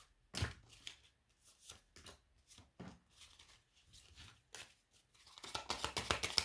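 Tarot cards being handled on a tabletop: scattered single flicks and slaps of cards, then a fast, rising rattle of cards near the end as the deck is shuffled.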